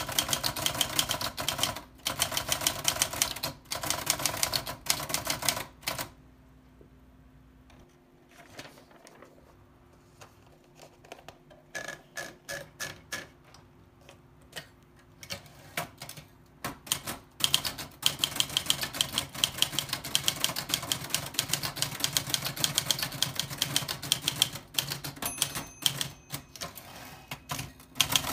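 Old typewriter being typed on: fast runs of key strikes, thinning to scattered single taps for several seconds around a third of the way in, then fast typing again.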